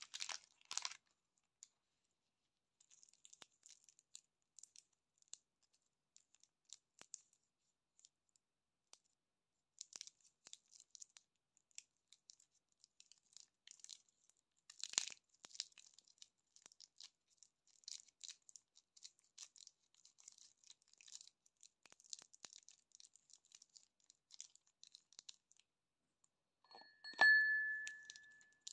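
Fingers crinkling and tearing the plastic wrapper off a ball lollipop: quiet, scattered rustles and crackles, with one louder tear about halfway through. Near the end comes a short, high squeak, the loudest sound.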